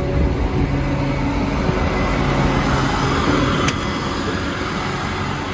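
Tractor engine running steadily while driving on the road, pulling loaded-weight gravity wagons, with a single sharp click about two-thirds of the way through.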